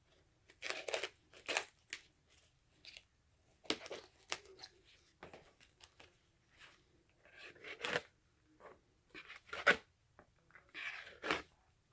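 A mail package being torn and cut open by hand: irregular bursts of tearing and crinkling, with pauses between them.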